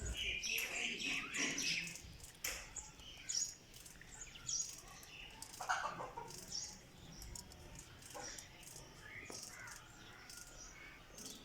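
Quails calling: a busy run of short chirps and peeps, several overlapping, with a few louder calls standing out now and then.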